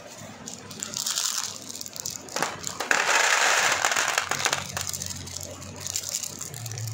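Small plastic smiley-face and letter beads poured from a plastic bag into a clear plastic box. They make a rattling, hissing patter that is loudest a few seconds in and then dies away, with the bag crinkling.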